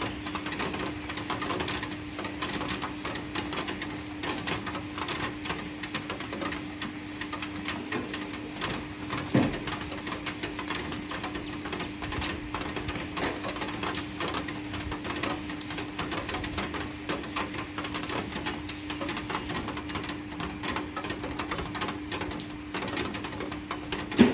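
Heavy rain falling, a dense patter of drops, with a steady low hum beneath it and a single louder knock about nine seconds in.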